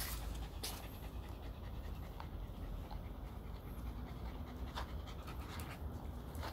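Shetland Sheepdog panting steadily at close range, with a couple of light clicks.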